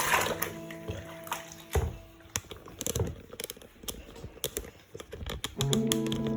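Background music with plucked-string notes at the start and again near the end. Between them come a few seconds of irregular small splashes and drips of bathwater as a cat is washed.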